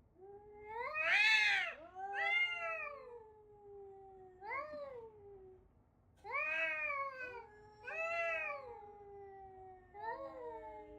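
A domestic cat meowing repeatedly: about six long, drawn-out meows, each rising then falling in pitch, some trailing off slowly into the next.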